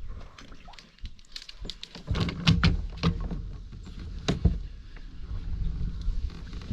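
Irregular hollow knocks and bumps on a plastic fishing kayak, over a low rumble that starts about two seconds in.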